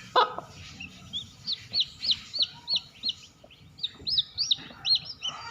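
Newly hatched chicken chicks peeping: a rapid run of short, high chirps, about three a second. A brief sharp sound comes just at the start.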